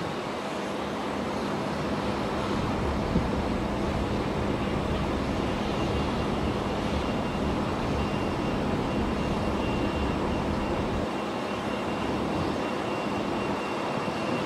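Airbus A330-300 airliner on final approach, its jet engines a steady rumble that grows slightly louder as it nears, with a thin steady whine coming in partway through.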